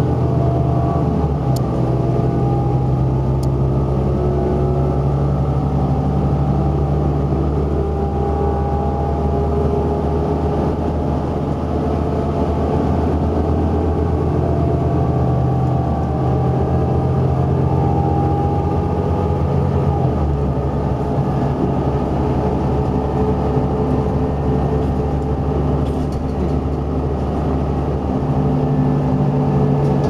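Inside a 2011 New Flyer XD40 transit bus at highway speed: its Cummins ISL9 diesel engine drones steadily under road and tyre noise, with slowly drifting higher tones from the driveline. The low engine note changes about two-thirds of the way through.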